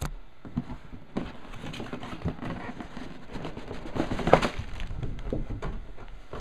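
Cardboard model-kit box being opened by hand: the lid scrapes and rubs as it is worked off, loudest about four seconds in.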